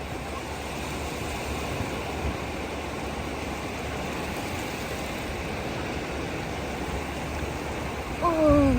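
Steady rushing water for a pretend-play wave. Near the end a voice calls out, gliding down in pitch.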